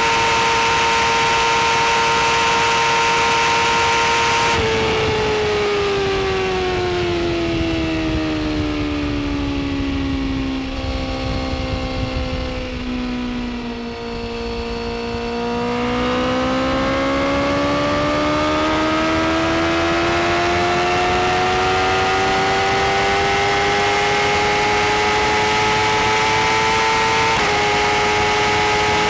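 BMW S1000RR's inline-four engine running at high revs, then revs falling steadily for several seconds with a couple of small steps, before climbing again slowly in a long pull. Near the end the pitch steps down slightly and holds steady.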